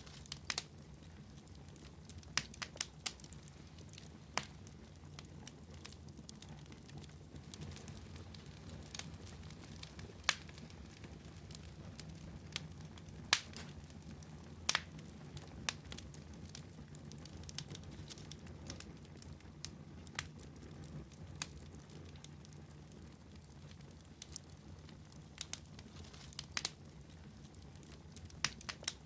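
Wood fire crackling in a fireplace: irregular sharp pops and snaps, a few of them louder, over a low steady rumble.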